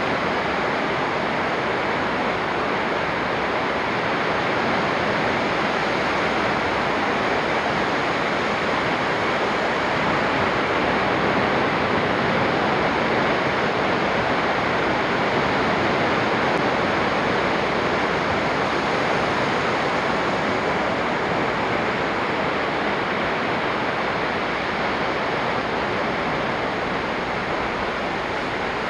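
Sea surf breaking on a beach: a steady, even rush of waves with no single crash standing out.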